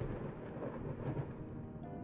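Low rolling thunder rumbling under soft background music.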